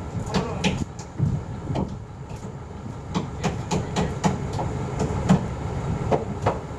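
Sharp knocks on wood, scattered at first and then about three a second, over the steady low rumble of the crane's engine as the timber steeple is set in place.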